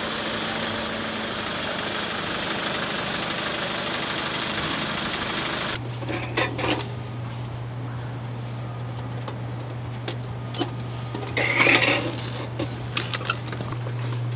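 Steady outdoor noise, then a low steady hum with scattered clicks and rattles as an extension-cord reel and its plug are handled, loudest a little before the end.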